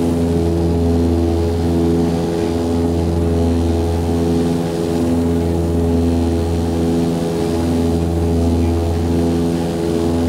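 Cabin drone of an Antonov An-24's twin turboprops and propellers: a loud, steady hum with a slow, regular throb.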